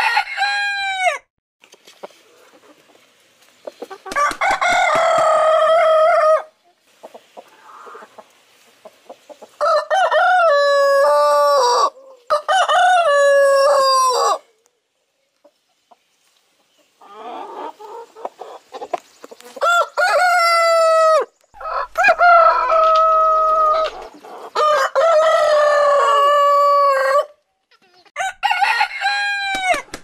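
Rooster crowing again and again: about seven long cock-a-doodle-doo crows a few seconds apart, each lasting two to three seconds.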